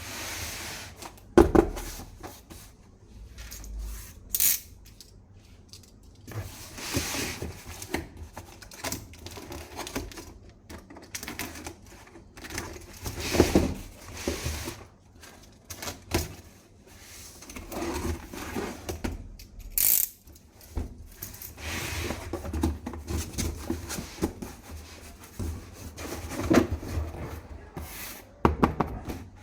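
Plastic toy gun parts and packaging being handled: irregular clicks, knocks and rattles with stretches of rustling, and a few sharp, louder knocks.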